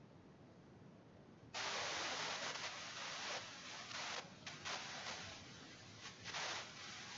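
Rustling, hissing noise that starts suddenly about a second and a half in, holds for about two seconds, then comes back in several short bursts before dying down near the end, over a faint background hiss.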